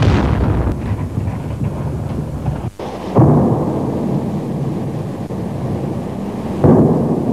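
Shells exploding: three heavy blasts, about three and a half seconds apart, each followed by a long rolling rumble.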